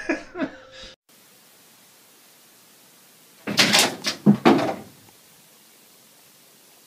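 A brief clatter of quick knocks and rattles about three and a half seconds in, over a faint steady hiss.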